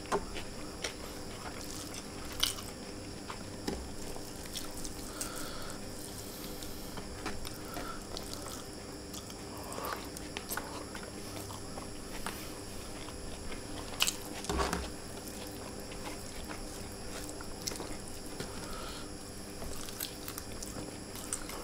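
A man chewing handfuls of rice and chicken close to the microphone, with short wet mouth clicks scattered throughout and two sharper clicks, about two and a half seconds in and about fourteen seconds in.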